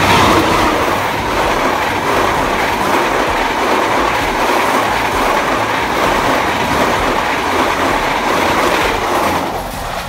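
A KAI CC 203 diesel-electric locomotive and its passenger coaches passing close by, with a loud, steady noise of wheels on the rails. The sound eases off shortly before the end.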